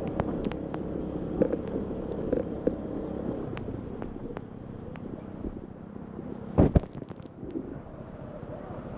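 Honda ADV150 scooter's single-cylinder engine running on a rough trail, its drone fading after about three seconds. Sharp clicks and knocks are scattered throughout, with one loud thump about two-thirds of the way in.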